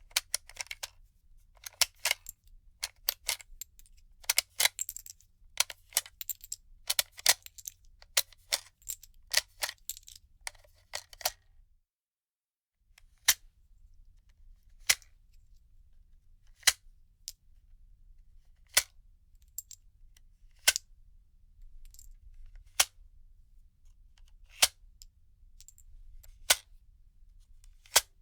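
Metallic clicks of a gun magazine being unloaded, cartridges clicking out: a quick run of clicks and short rattles for about eleven seconds, then, after a brief gap, single sharp clicks about every two seconds.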